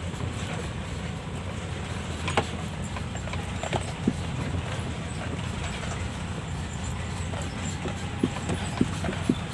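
Six-wheel lorry running low and steady inside the cab as it crawls over a rough, potholed dirt track, with scattered sharp knocks and rattles from the cab as it jolts over the ruts.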